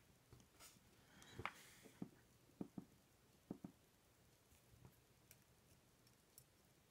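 Faint small clicks and taps of tiny lock pins and springs being handled during reassembly of an ASSA Twin 6000 lock, several sharp ticks in the first half, some in close pairs, with a brief soft hiss among them.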